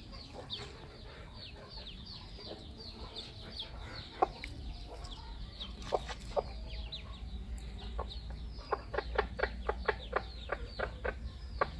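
Ducklings peeping, a steady stream of short, high, falling calls. About nine seconds in a hen clucks in quick short notes, about four a second.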